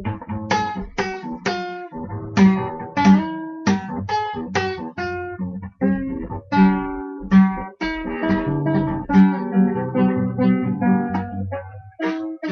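Guitar played solo, chords and notes struck in a steady rhythm that grows busier in the second half.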